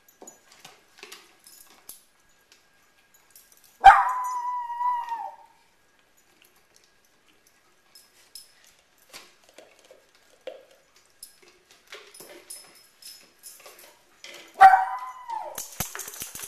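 Small dogs licking at plastic peanut butter jars, with faint clicks and scrapes. Twice, about four seconds in and near the end, a dog gives a short, high whining yelp that starts sharply, holds for about a second and drops away.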